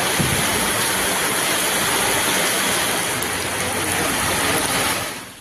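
Heavy rain pouring down, a steady dense hiss that fades out near the end.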